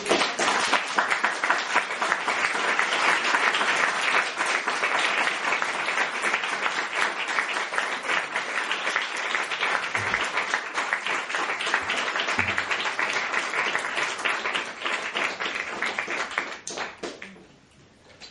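Audience applauding, starting at once and holding steady for about sixteen seconds before dying away near the end.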